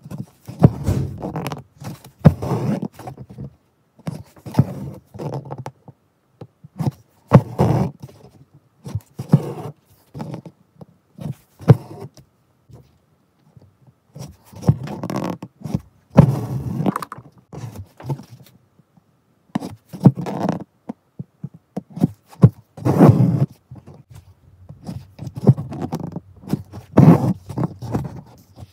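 Hand embroidery close to the microphone: an embroidery needle pushed through fabric and pink thread drawn through it for chain stitch, with fingers rubbing and scraping the cloth. The scrapes come in irregular strokes every second or two, with small sharp clicks.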